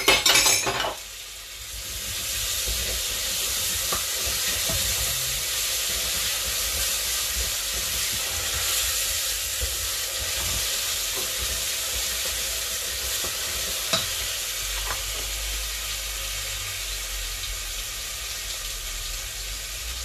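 Onion, garlic and ají sofrito frying in oil in a stainless steel pot: a steady sizzle that builds up over the first two seconds and then holds. A few sharp knocks of the wooden spoon against the pot come at the very start, and one more click about fourteen seconds in.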